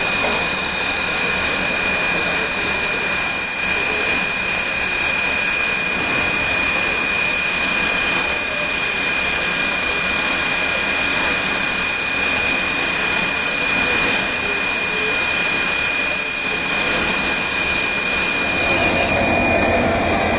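SNCF 141R steam locomotive standing with steam hissing steadily and loudly from around its running gear. Near the end the hiss gives way to the deeper, steady drone of a CC 72000 diesel locomotive idling.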